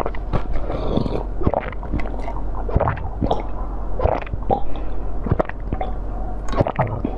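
Close-miked wet sucking and slurping at soft jelly, with many irregular squishes, smacks and small pops.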